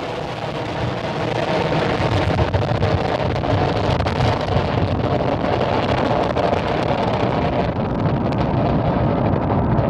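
Falcon 9 first stage's nine Merlin engines in ascent: a steady rocket rumble with crackling. It cuts off abruptly near the end.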